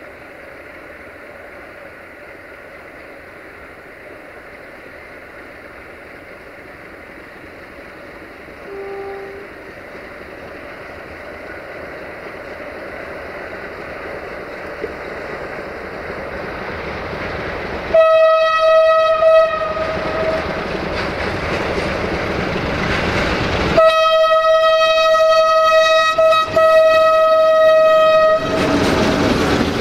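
Romanian 060-DA (LDE2100) Sulzer-engined diesel-electric locomotive hauling tank wagons approaches, its engine rumble growing steadily louder. About two-thirds in it sounds its single-note horn twice, a short blast and then a longer one of about four seconds. It passes close with loud engine and wheel noise.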